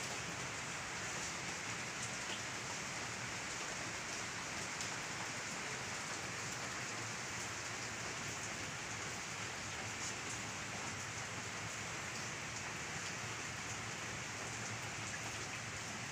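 Steady, even hiss of rain that does not change.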